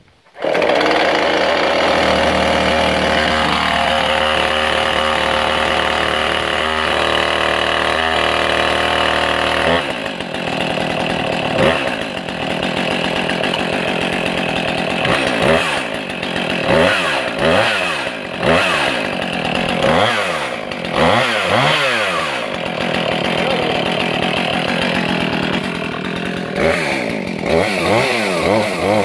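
Husqvarna Rancher 450 two-stroke chainsaw running steadily for about ten seconds. After that its revs rise and fall again and again as it cuts through a small tree.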